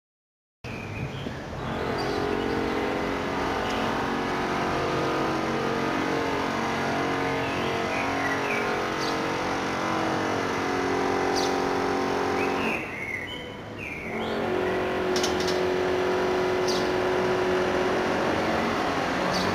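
A motor running steadily, with a brief drop about thirteen seconds in before it picks up again; a few short bird-like chirps sound over it.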